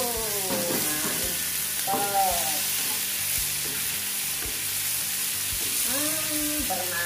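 Fresh shrimp and spices sizzling in a hot wok, stirred with a wooden spatula. A few short pitched tones that rise and fall sit over the sizzle.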